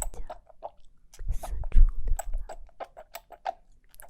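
Close-miked ASMR tactile sounds: a rapid, irregular run of crisp clicks and crackles, with a low rubbing rumble from about a second in to about two seconds.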